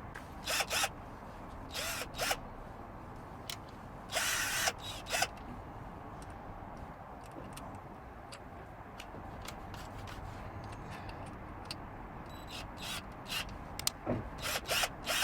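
Cordless drill run in several short bursts of a fraction of a second each, with small clicks and handling noises between, and a quick cluster of bursts near the end.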